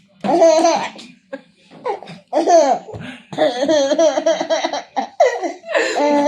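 A baby laughing in several high-pitched, wavering bouts with short breaks between them.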